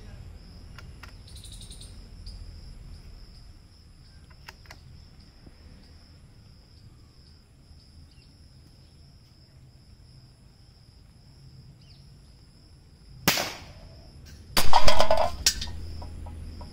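A single sharp .22 rifle shot about 13 seconds in, followed a second and a half later by a louder burst of rapid clattering with some ringing that lasts about a second.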